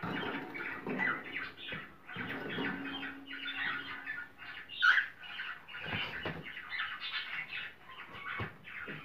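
A flock of cockatiels chattering and calling over one another, a dense, continuous run of short chirps and squawks, with one louder call about five seconds in.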